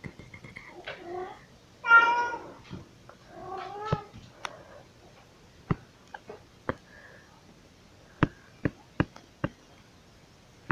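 House cat meowing three times in the first four seconds, the middle call about two seconds in the loudest. A run of sharp, irregular clicks and taps follows.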